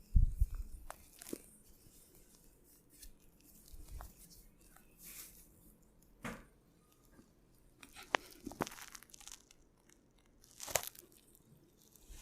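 Close-up massage sounds: hands rubbing and pressing on skin, with a low thump just after the start and scattered light clicks and brushing strokes.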